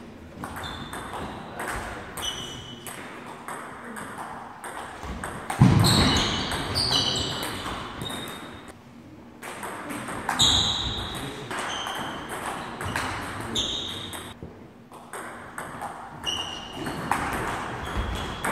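Table tennis ball in rallies: quick sharp pings as it is struck by the bats and bounces on the table, in runs with short pauses between points, over a hum of voices in a large hall. A sudden louder sound stands out about five and a half seconds in.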